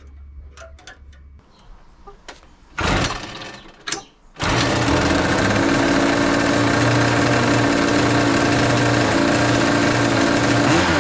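Small two-stroke engines of a homemade jet-drive board start up about four and a half seconds in and run loud and steady. Before that there are only light handling clicks and a short burst of noise.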